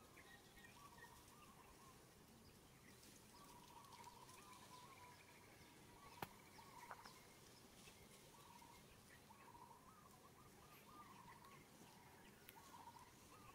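Faint distant birds warbling in short, wavering phrases that recur every few seconds, with a single sharp click about six seconds in.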